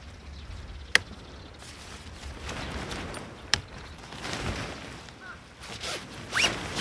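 Tent being pitched: nylon tent fabric rustling while aluminium tent poles and pole clips are handled, with two sharp clicks of a pole or clip snapping into place and a louder swish of fabric near the end.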